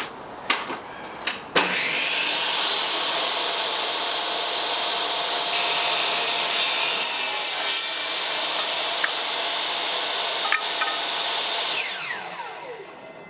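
Bench table saw switched on with a click and spinning up to a steady whine, then ripping a strip of pallet wood for about two seconds, about five seconds in. It runs free afterwards and is switched off near the end, winding down with a falling whine. A few knocks from handling the wood come before it starts.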